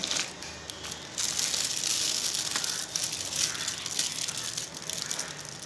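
Metallic gold gift-wrap film crinkling as hands scrunch and fold it around a small bottle: a dense crackle, loudest from about a second in until past the middle.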